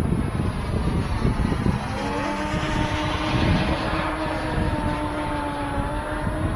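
The twin electric ducted fans of a radio-controlled A-10 model run at part throttle while it taxis, over a rough, noisy rumble. About two seconds in, a steady whine sets in and holds.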